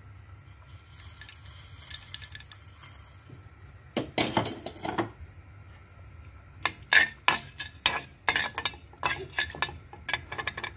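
Metal spoon scraping and clinking against a small metal pan as black peppercorns and cumin are stirred in hot ghee, with a light sizzle beneath. There is one scrape about four seconds in, then a run of quick clinks and scrapes from about seven seconds on.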